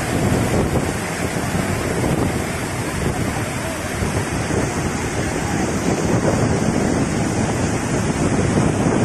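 Steady rush of floodwater pouring over a dam spillway and churning below it.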